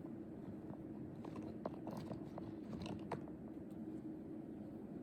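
Irregular small clicks and crunchy scratches from a cat and a pet brush, clustered in the middle of the stretch, over a steady low hum.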